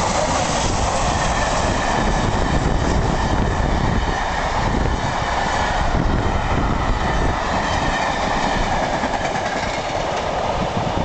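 Steam-hauled express passing at speed: the three-cylinder BR Standard Class 8 Pacific 71000 Duke of Gloucester going by at the start, then its coaches rolling past with a steady rush and clatter of wheels on the rails. Wind is buffeting the microphone, and the sound eases a little near the end as the train draws away.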